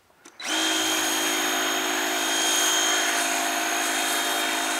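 DeWalt DCPW550 battery-powered 550 PSI power cleaner starting about half a second in and running steadily, its motor and pump giving a steady whine over the hiss of a foam cannon spraying soap.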